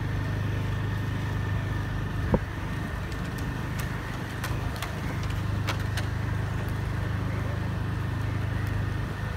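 An engine running steadily with a low, even hum, and a single sharp tap about two and a half seconds in.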